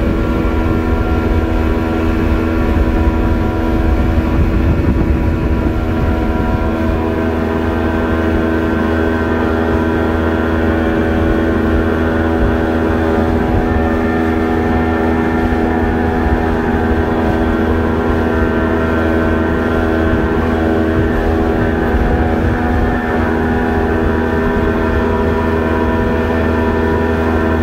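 Outboard motor running steadily at speed, with the rush of the boat's wake beneath it.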